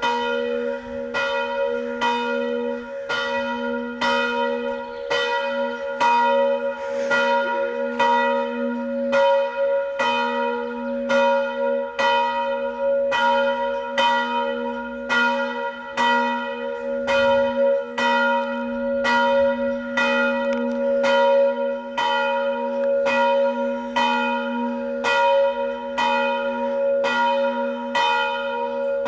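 A single swinging church bell tolling steadily for the noon ringing, striking about once a second, its ringing carrying on between strokes.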